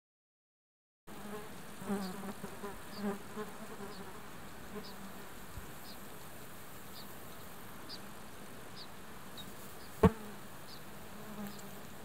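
A flying insect buzzing close by in several short passes about two to four seconds in, while short high chirps repeat about every 0.7 seconds. A single sharp click sounds near ten seconds in.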